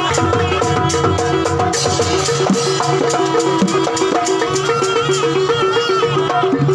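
Live Javanese jaranan gamelan music: drums and a fast repeating figure on tuned metal percussion, with a high wavering melody line above, strongest around the second half.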